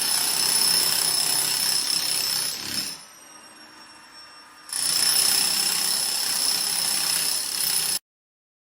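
Wheeled jackhammer breaking up floor tiles and their mortar bed, running in two bursts of about three seconds with a short pause between, then stopping abruptly.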